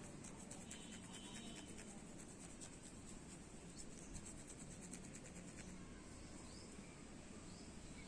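Faint, quick scratching and crackling of fingers rubbing through hair on the scalp during a head massage, dense for the first half and then fading out.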